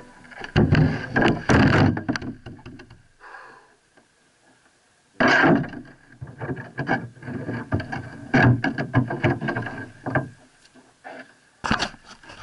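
Knocks, bumps and scrapes of a kayak hull being handled and shifted on paving stones, carried through the hull to a camera mounted on its deck. The noise comes in irregular bouts with a quiet pause of about two seconds partway through.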